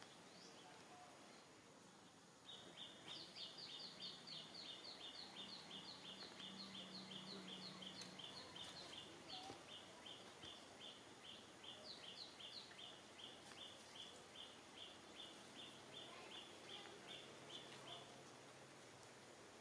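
A bird calling: a rapid, even string of short, high two-part chirps, about three a second, starting a couple of seconds in and stopping near the end.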